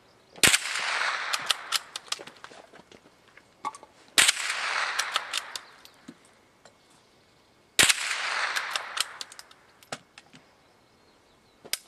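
Three single gunshots about three and a half seconds apart. Each is followed by a rolling echo off the surrounding hills that lasts over a second. A shorter sharp crack comes near the end.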